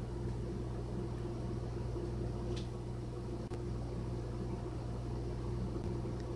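Glass electric kettle heating water: a steady hum and hiss, with a couple of faint ticks.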